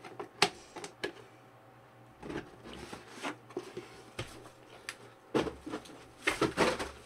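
Cardboard parts boxes being handled: scattered knocks, taps and rustles, then a louder cluster of knocking and rustling about five and a half seconds in.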